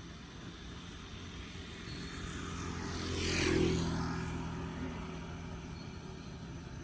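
A vehicle passing by, its noise swelling to a peak about halfway through and then fading, over a steady low rumble.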